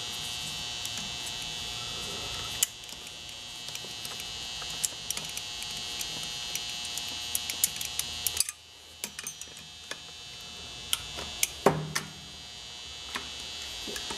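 Light metallic clicks and taps of a wrench working on a sander's pad spindle, over a steady electrical-sounding hum. The hum drops away suddenly about eight seconds in and slowly comes back, and a louder knock comes near the end.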